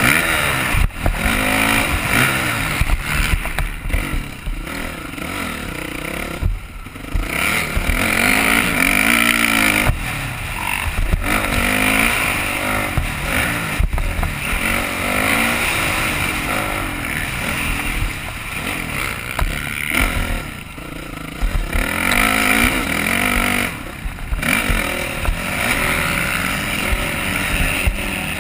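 Motocross dirt bike engine revving hard and easing off over and over as the throttle is worked around the track, its pitch rising and falling with each pull, over heavy wind buffeting on the microphone. The engine briefly drops off twice, once about a quarter of the way in and once near the end.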